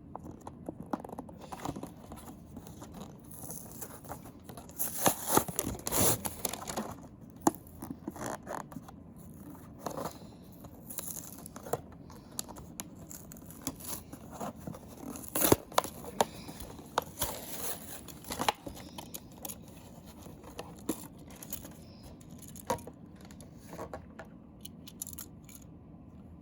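Toy packaging being opened by hand: cardboard and plastic tearing, scraping and crinkling in irregular bursts with sharp clicks, loudest about five to six seconds in and again around fifteen seconds.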